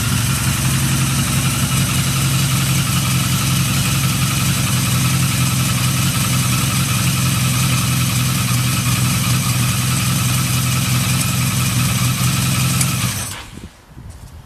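Yamaha XJ750E's air-cooled inline-four motorcycle engine idling steadily and evenly, a stable idle with no abnormal noise. About a second before the end it is switched off and the sound drops away suddenly, leaving a few faint clicks.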